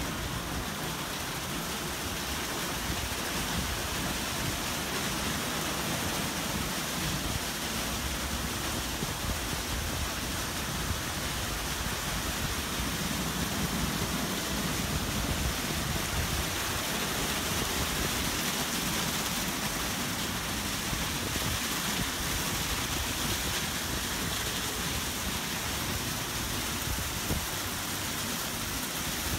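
Ryko SoftGloss MAXX rollover car wash running a wash cycle: a steady rush of water spray mixed with the spinning foam brushes.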